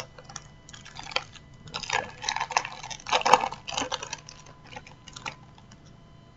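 Foil wrapper of a Match Attax trading-card packet crinkling and tearing as it is opened by hand, in irregular crackling bursts that stop about five seconds in.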